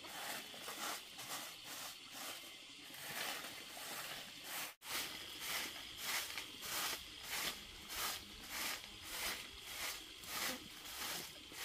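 Grass broom sweeping a dirt path: a steady run of short brushing swishes, about two strokes a second, with a brief break about five seconds in.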